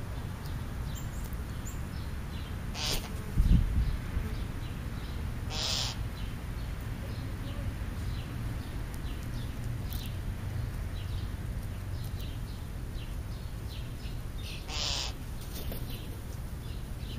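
Crows calling with a few short, harsh calls, about three, six and fifteen seconds in, over a steady low rumble. A dull thump about three and a half seconds in is the loudest sound.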